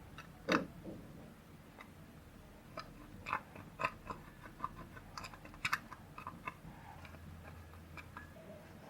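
Clear slime being squeezed and worked by hand, giving irregular sticky pops and clicks, the loudest about half a second in.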